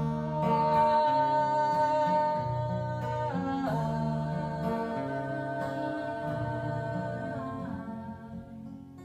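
Wordless sung "aah" in long held notes over acoustic guitar: one long note, a step down a little over three seconds in, then a second long note that slides down and fades near the end.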